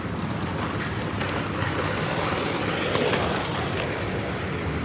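Skateboard wheels rolling over an asphalt street: a steady, even rumble.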